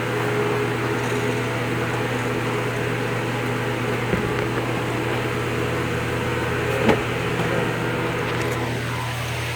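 Steady mechanical hum with fixed tones, like a running fan or motor, with a light knock about four seconds in, a sharper knock about seven seconds in, and a faint falling tone near the end.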